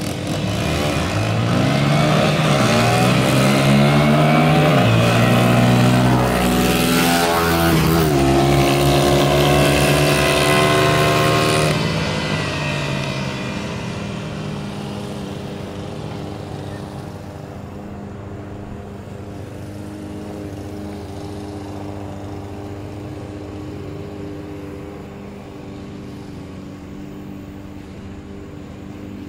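Two dirt bike engines approaching and passing close by, revving, their pitch dropping as they go past about five to seven seconds in. The sound fades off after about twelve seconds, leaving a quieter steady drone.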